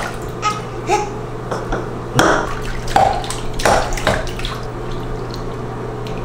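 Bathwater sloshing and splashing in a bathtub as a baby moves about in it, with a few louder splashes about two, three and four seconds in.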